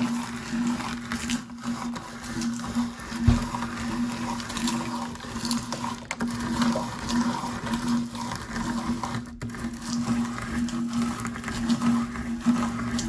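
Electric meat grinder running with a steady, slightly pulsing hum while it grinds crunchy popcorn, with many small crackling crunches throughout.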